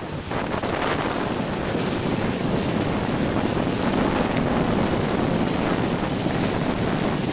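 Steady wind buffeting the microphone over rushing, churning water as the boat is carried around by a tidal whirlpool current.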